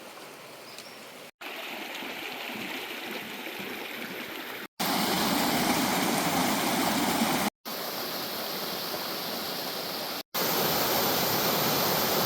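Rushing stream water, a steady noise with no tones in it, heard in a run of short clips: the level jumps at each cut, loudest about five seconds in and again near the end.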